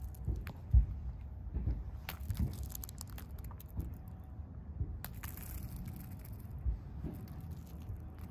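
Gravel crunching and shifting under a young horse's hooves and a handler's boots, with irregular thumps and a few short crackling rustles over a low outdoor rumble.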